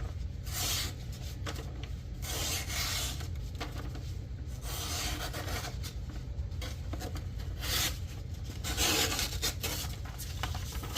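A pocket knife blade cutting with a series of rasping strokes, each under a second to about two seconds long, with short pauses between.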